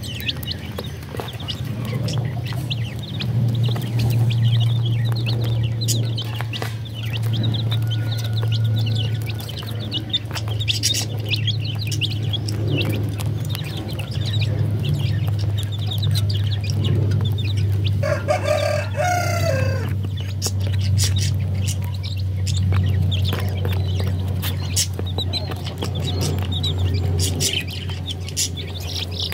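Baby chicks peeping with chickens clucking, many short clicks among them, over a steady low hum. About two-thirds of the way in, one longer, lower call from an adult chicken falls away at its end.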